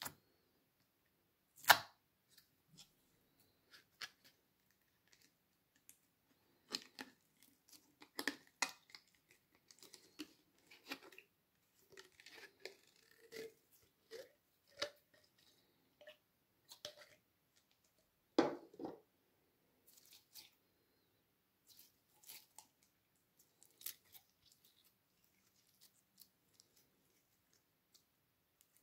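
Green slime being squeezed and pulled by hand out of a clear plastic container, giving scattered sticky crackles and sharp plastic clicks. The loudest clicks come about two seconds in and again around eighteen seconds.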